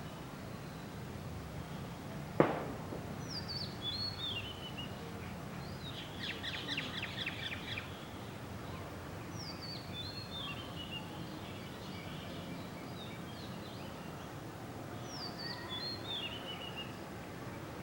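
Birds singing over a steady outdoor background hum. A short descending chirped phrase repeats about every six seconds, and a rapid rattling call runs for about two seconds in the middle. One sharp click sounds about two and a half seconds in.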